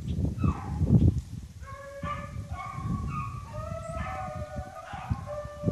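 A pack of rabbit hounds baying, several long drawn-out voices overlapping, as they run a cottontail's scent trail. The baying builds up about a second and a half in, after a low rumble in the first second.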